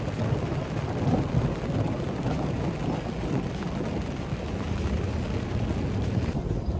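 Long low rumble of thunder rolling overhead.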